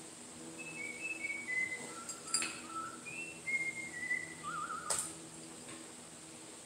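Someone whistles a tune of short, clear notes that step down in pitch, ending in a quick warble about four and a half seconds in. Two light metal clinks come from the sheet on the bending brake, about two and a half and five seconds in.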